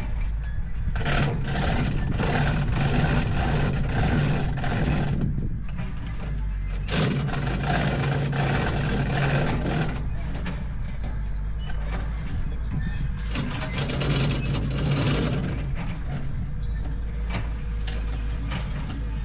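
Heavy diesel engine running steadily at a low idle, with louder, noisier passages coming and going several times over the engine hum.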